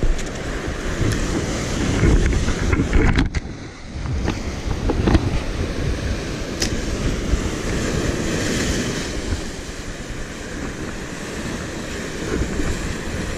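Sea surf breaking and washing over the rocks of the shoreline, a continuous rushing wash that swells and eases, with wind buffeting the microphone. The noise briefly drops away about three and a half seconds in.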